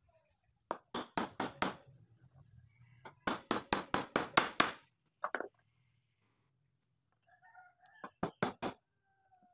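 Hammer driving nails into a timber block, in three bursts of quick, sharp blows about five a second. A rooster crows faintly in the background late on.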